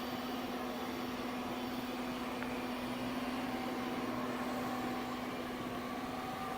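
Moore No. 3 jig grinder running: a steady motor hum with a few fainter, higher steady tones over a noisy background.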